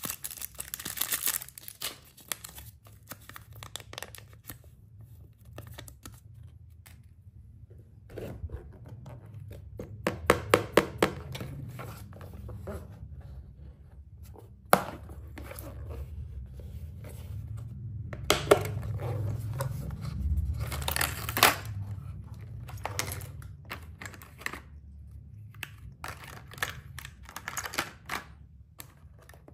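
A thin plastic candy wrapper crinkling and tearing in the hands for the first couple of seconds. Then a hard plastic toy makeup case and its plastic pieces are handled, with several sharp clicks and knocks and a low rumble of hand movement.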